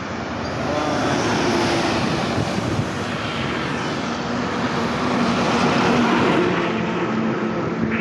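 Large intercity bus driving past close by, its engine and tyre noise swelling as it goes by and loudest about six seconds in.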